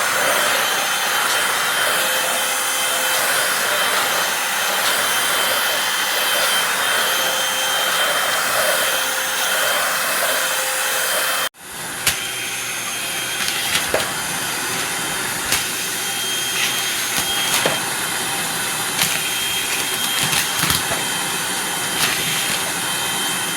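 Eureka corded stick vacuum running with a steady whirring hiss. A little past halfway it cuts off abruptly and resumes at once, a bit quieter, with scattered sharp ticks and knocks over the motor noise.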